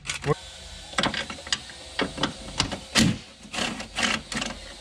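Hand ratchet wrench clicking in short, irregular runs, with knocks of the tool against the metal headlight bracket, as the headlight assembly is unbolted.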